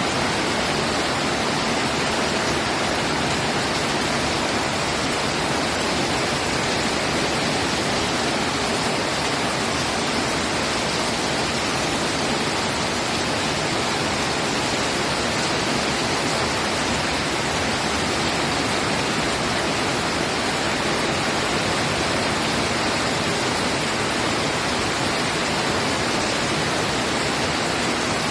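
Monsoon rain falling in a steady, even hiss.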